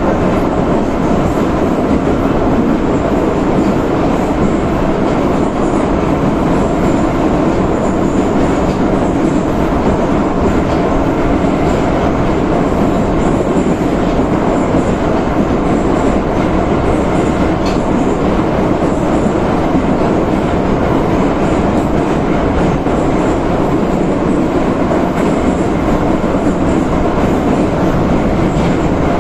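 81-717/714 metro train running at speed through a tunnel, heard from inside a car: a loud, steady rumble of wheels on rail.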